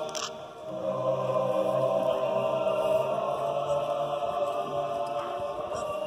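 Slow choral music: voices holding long, sustained notes over a steady low note, with a brief dip in level about half a second in.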